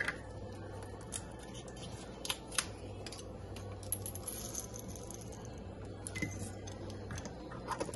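Sparse light clicks and taps of whole allspice berries being shaken from a small spice jar into a plastic measuring spoon and tipped into a glass jar, over a faint steady hum.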